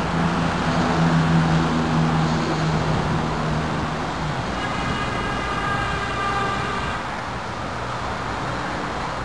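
Road traffic noise: a steady low hum for the first four seconds or so, then a higher whine of several tones held for a couple of seconds.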